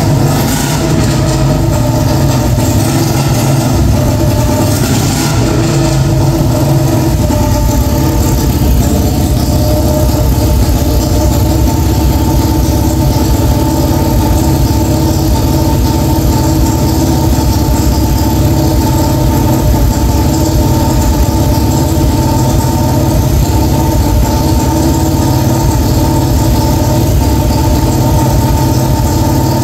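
Royal Enfield Bullet 350's single-cylinder four-stroke engine running at a steady, even speed, with no revving.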